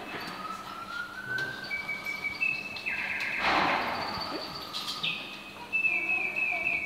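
Antique mechanical singing-bird cage automaton, its bellows-driven whistle singing a run of held notes that step and slide in pitch, broken by quick warbling trills. A brief rush of noise about three and a half seconds in is the loudest moment.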